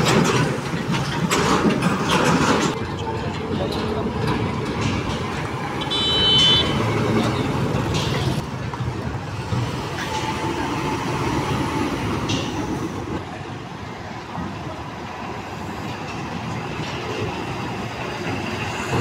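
Heavy diesel trucks driving past one after another, engines running and tyres on a rough road, with a short high horn beep about six seconds in.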